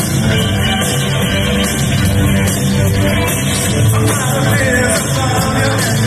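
New wave rock band playing live and loud, with drums, electric guitar and synthesizer keyboard, heard from among the audience.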